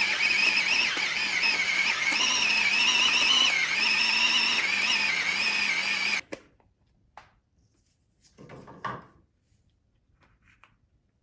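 Electric kitchen blender running as it chops fried chicken breast, its motor pitch wavering slightly under the load. It cuts off suddenly about six seconds in, followed by a few faint knocks.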